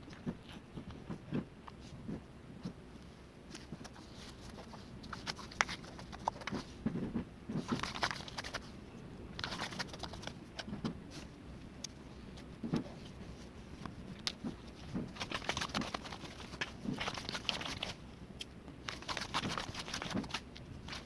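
Irregular rustling and crinkling with scattered small clicks and taps, coming in clusters of a second or two.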